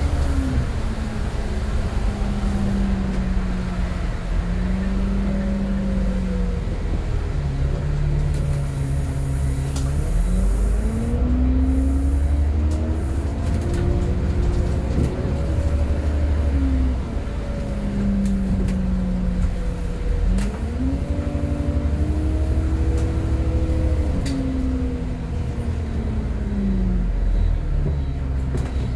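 Transbus Trident bus engine and ZF automatic gearbox heard from inside the saloon while driving. The engine note rises and falls several times as it accelerates, changes gear and eases off, over a steady low rumble. The gearbox is one the title calls slipped.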